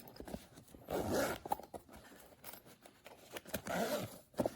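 Packaging of a tool set being handled and opened by hand: irregular rustling and scraping in two bursts, about a second in and again near the end, with a few sharp clicks.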